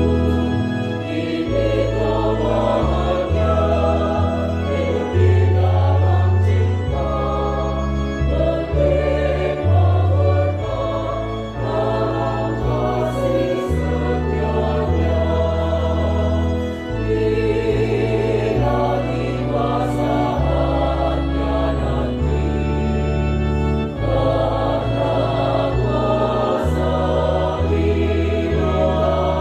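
Choir singing a song in harmony, over low sustained accompaniment notes that change every second or two.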